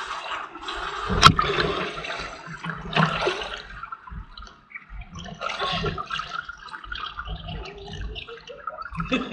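Swimming-pool water sloshing and splashing right at a microphone sitting at the waterline, in uneven surges, with a sharp knock about a second in.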